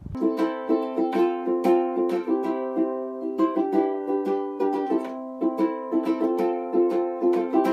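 Ukulele strummed, chords played in a steady rhythm.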